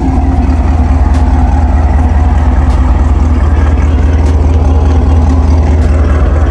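Chevrolet Camaro 2SS's 6.2-litre V8 engine and exhaust running steadily while driving, a loud, even low rumble.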